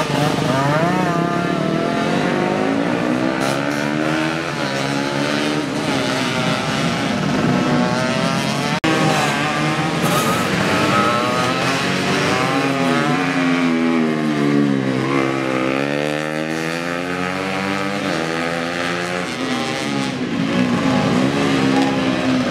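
Two-stroke Yamaha F1ZR underbone race motorcycles revving hard as they race past, engine pitch repeatedly climbing and dropping with throttle and gear changes. About two-thirds through, the pitch falls deeply and climbs back as a bike brakes and accelerates away. The sound breaks off for an instant a little under halfway through.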